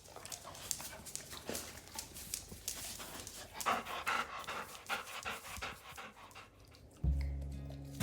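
A dog panting in quick, even breaths; about seven seconds in, music with low sustained notes comes in.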